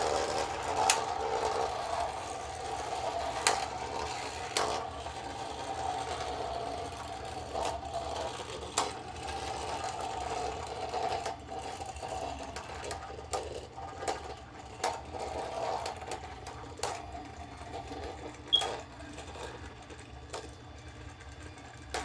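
Beyblade spinning tops whirring in a plastic stadium, one of them 3D-printed, with sharp clicks as they strike each other and the stadium wall. The whir weakens in the second half as the tops slow down.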